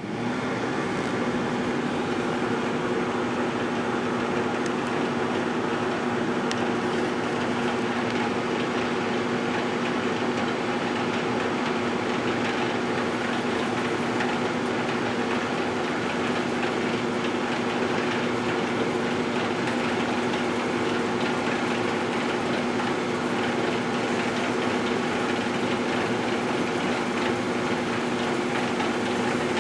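GE Dual Wave microwave oven running: a steady, unchanging hum with a buzzing tone, starting just after the timer is set.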